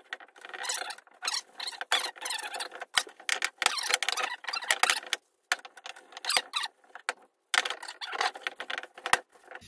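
Cotton rag buffing hardened wax on a wooden axe handle: quick, irregular rubbing strokes with squeaks, in bursts broken by short pauses.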